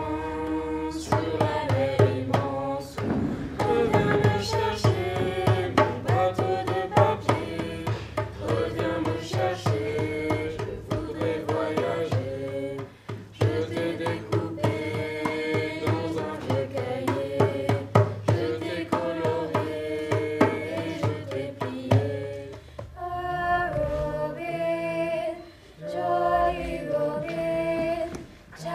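A group of teenage voices singing together over a steady beat on a hand-played djembe. About 23 seconds in the drum stops and a group sings on unaccompanied.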